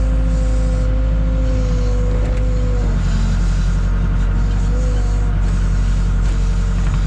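Case 580K backhoe's diesel engine running at raised throttle while digging, with a steady whine that drops in pitch about three seconds in and wavers near the end.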